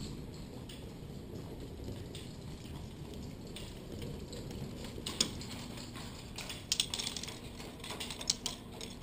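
Plastic ball rolling along a K'NEX ball-machine track: a steady low rumble, with sharp plastic clicks and clatters from about five seconds in that come thicker near the end.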